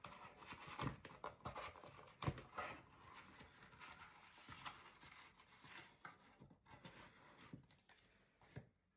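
Faint handling noise of a small cardboard advent-calendar drawer being worked at to free the product stuck inside: soft rustles, scrapes and small clicks, with one sharper knock about two seconds in.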